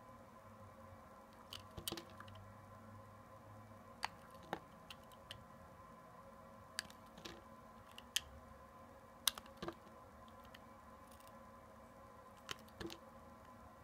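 Snap-off utility-knife blade cutting through soft glycerin soap, giving scattered crisp clicks and crackles at irregular intervals as the layers give way, over a faint steady hum.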